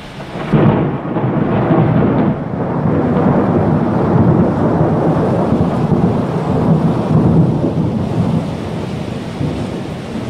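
Thunder rumbling: a deep, long rumble that starts suddenly about half a second in and slowly dies down toward the end.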